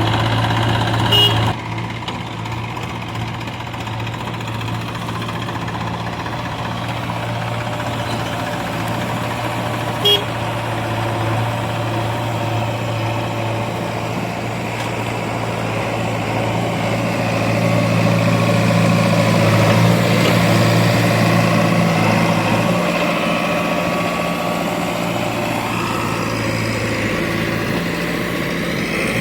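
Diesel engine of a tractor or backhoe running steadily, with short clicks about a second in and about ten seconds in. The engine builds up and grows louder past the middle, then eases back.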